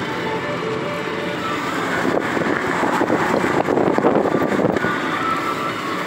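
Car driving along a paved road, heard from inside the cabin: a steady rumble of tyres and engine that grows louder for a few seconds in the middle.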